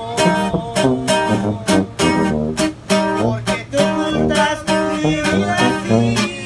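Live norteño music: a button accordion plays the melody in sustained, shifting notes over a rhythmically strummed acoustic guitar.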